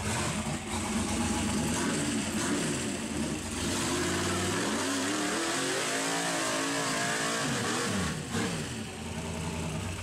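Rock buggy's engine revving hard in repeated surges under full load as it claws up a steep rock ledge. Near the middle comes a long rev that climbs and then falls, followed by a brief drop just after the eight-second mark.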